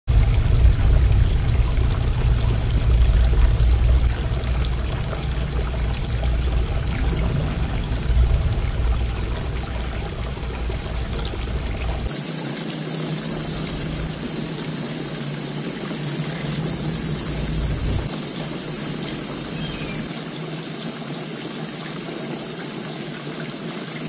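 Water trickling and splashing down a small stacked-stone garden fountain. A heavy low rumble runs under it for the first half. From about halfway, a steady high-pitched whine joins it.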